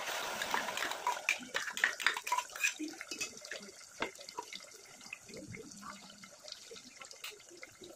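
Water poured from a steel tumbler into an aluminium bowl of flour, running for the first three seconds or so. Light metal clinks and taps from the steel tumbler and spoon follow.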